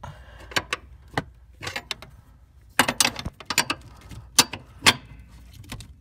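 Wrench tightening the 17 mm locknut on a Mazda Miata's clutch master cylinder pushrod: a string of sharp, irregular metal clicks and knocks, busiest and loudest about halfway through.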